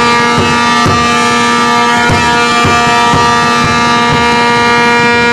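A single steady horn-like tone held without a break, over a regular drum beat of about two beats a second, in a basketball arena.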